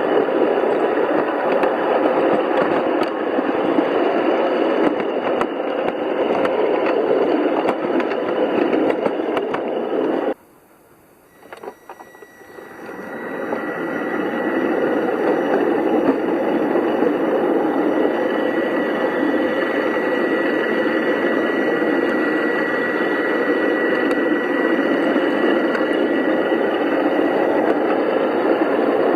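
5-inch gauge garden railway train running on its track, a steady noisy rumble. About ten seconds in the sound drops away abruptly, then builds back up over the next few seconds, with a faint steady high tone through much of the rest.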